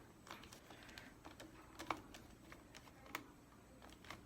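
Faint, scattered small clicks and taps of a small Phillips screwdriver driving the black motherboard screws back into a Dell 3100 Chromebook, with a sharper click about two seconds in.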